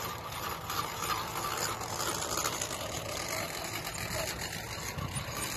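Electric motor and geared drivetrain of an RC rock crawler running steadily as it climbs over logs.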